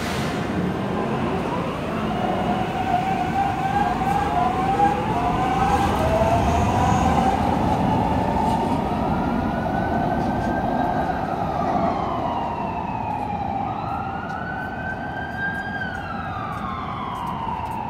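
An emergency vehicle siren wailing, its pitch climbing and falling slowly twice, over the steady rumble of a Metro light rail train pulling into an elevated station.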